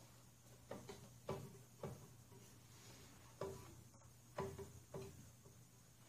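A loose blade on a Snapper 21-inch walk-behind mower clunking as it is rocked by hand, about seven irregular metallic knocks, some with a short ring. The play is in the blade mounting and not a connecting-rod knock: the blade is a little loose.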